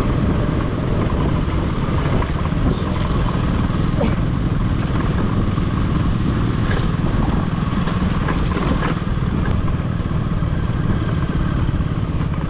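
Motorcycle running, heard as a loud, steady low rumble.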